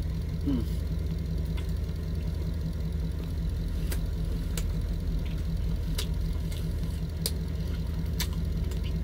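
Engine idling with a steady low hum inside a truck cab, under close-up chewing of a sausage hot dog, with sharp mouth clicks now and then from about four seconds in.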